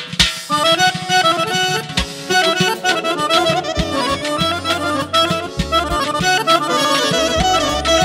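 Azerbaijani garmon (button accordion) playing a fast, ornamented folk dance melody with clarinet and drum accompaniment. It comes in about half a second in, after a drum break.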